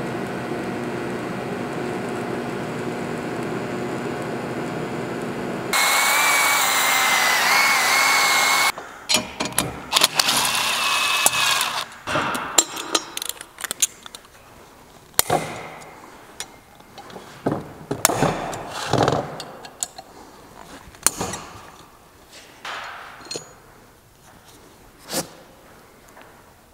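TIG welding arc on a cast steel turbine housing, a steady hum for about six seconds. Then a power tool runs for about three seconds with a wavering whine, followed by scattered clinks, knocks and scrapes of metal parts being handled.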